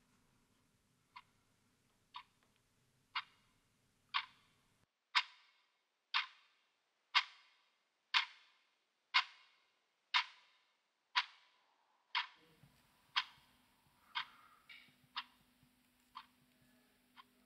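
Clock ticking once a second, the ticks swelling louder over the first several seconds and then fading away again.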